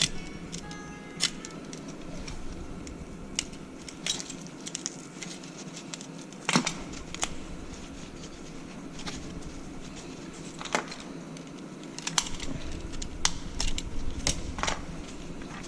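Scattered clinks and knocks of metal tools and parts being handled while a rotary-vane vacuum pump is taken apart, over a steady low hum.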